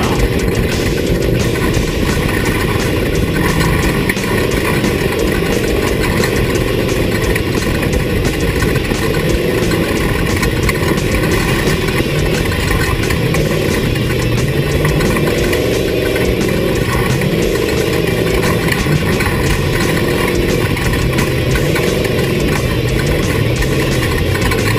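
Off-road race vehicle's engine running continuously, its pitch rising and falling with the throttle over a steady loud rush of mechanical and road noise.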